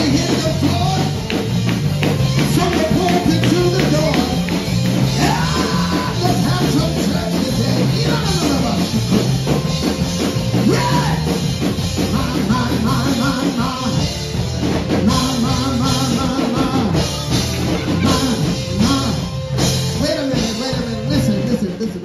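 Gospel praise band playing an upbeat song, with drum kit and a steady bass line, and voices singing over it.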